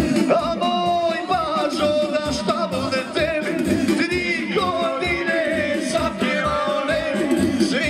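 Bosnian folk kolo dance music: a singer with an ornamented melody over a band, with a steady drum beat about twice a second.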